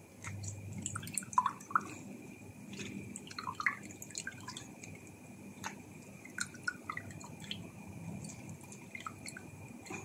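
A half lemon squeezed and twisted on a fork, its juice and pulp dripping and splashing into a pot of salted water, with small wet squelches from the flesh. The drips and squelches come irregularly, many small ones in a row.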